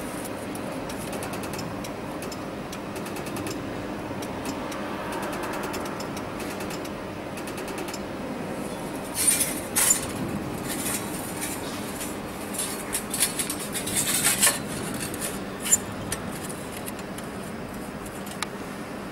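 BHJ 300W pulsed laser welder firing in a rapid series of ticks as it spot-welds the seam of a stainless steel channel letter, over a steady machine hum. From about nine seconds in, louder sharp metallic clinks come in clusters as the stainless steel letter is moved and handled.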